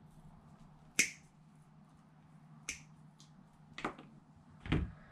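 Wire cutters snipping through the RC car's brushless motor wires to cut off the old bullet-connector ends: four sharp clicks spread over the few seconds, the first the loudest.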